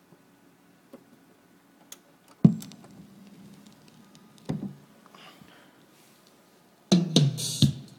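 Turntable stylus set down on a vinyl record, heard as a sharp thump through the speakers with a low hum and faint surface noise after it, and a second smaller knock a couple of seconds later. The record's music, with drum hits, starts near the end.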